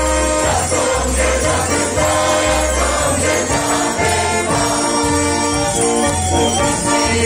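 Lively Slovak folk dance music for a circle dance, with voices singing along over a bass line that pulses about twice a second.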